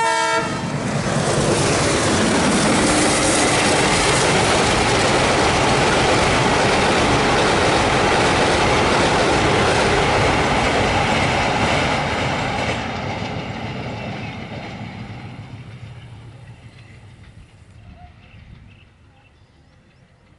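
A WDM3A ALCO diesel-hauled passenger train rumbles across a river bridge, its wheels clattering over the rails. The tail of the locomotive's horn cuts off at the very start. The rumble holds loud for about twelve seconds, then fades away as the train moves off.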